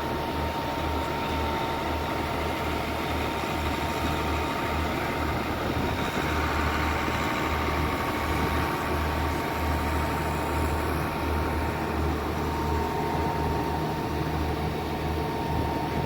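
Tractor engine running steadily, heard from inside the cab, with a thin steady high whine throughout.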